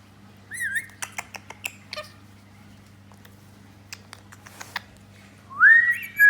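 Rainbow lorikeet whistling: a short wavering whistle about half a second in, a scatter of sharp clicks, then near the end a loud whistle that rises and levels off.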